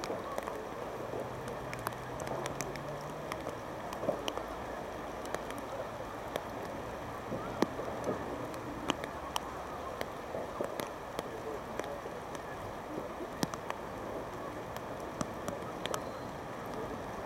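Steady rain hiss with scattered, irregular sharp ticks of raindrops, over faint indistinct voices.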